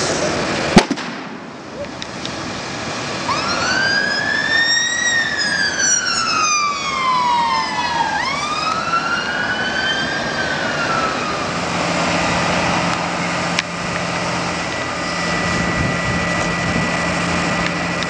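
An emergency vehicle's siren wails, rising and falling twice, over a steady rushing noise from the blaze and the fire hoses. A single sharp bang comes about a second in, and a steady droning tone takes over after the siren fades.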